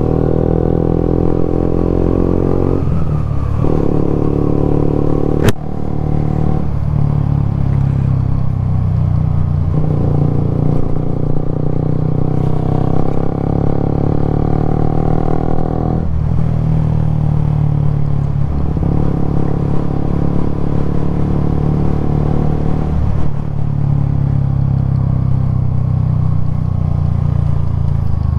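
Suzuki GSX-S125's single-cylinder four-stroke engine running under way, its note rising with the throttle and dipping briefly every few seconds at gear changes and throttle lifts. A single sharp click cuts across it about five seconds in.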